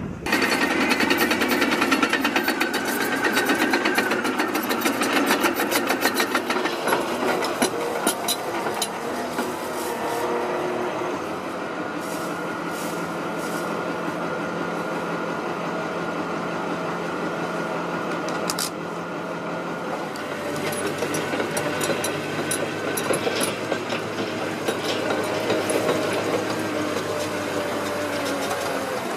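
The engine of a tracked drain-laying machine runs steadily, with a constant hum and scattered clanks and knocks that are thickest in the first half.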